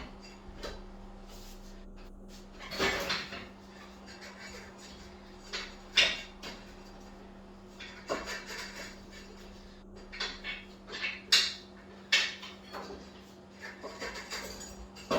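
Scattered metallic clanks and knocks of a motorcycle rear wheel being worked out from the swingarm by hand. The sharpest knocks come about six and eleven seconds in, over a steady low hum.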